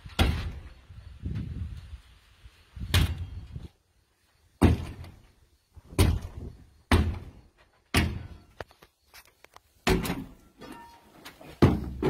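Steel digging bar driven down repeatedly, about ten heavy thuds roughly a second apart, a few with a brief metallic ring.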